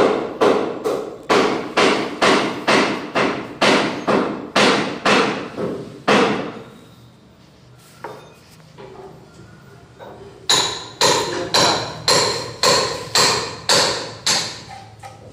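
Rhythmic hammer-like knocking, about two to three blows a second, in two runs with a pause of about four seconds between them. The blows in the second run ring with a metallic tone.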